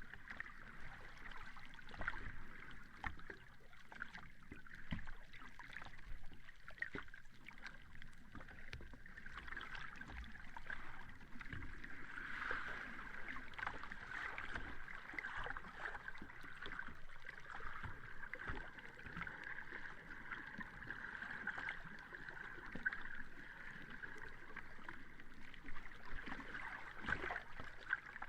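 Small sea waves lapping at the shore: a steady watery wash full of fine crackling and fizzing, swelling slightly now and then.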